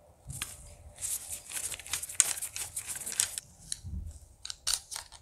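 Gloved hands working the plastic lower receiver and buffer tube of a CYMA AR-47 airsoft rifle: a dense run of small clicks and rustles for about two seconds, then a dull knock about four seconds in and a few more clicks.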